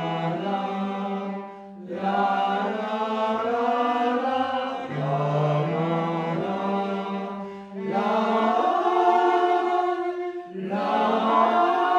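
Music: a chant-like piece of long held notes over a steady low drone, in phrases of two to three seconds broken by short pauses.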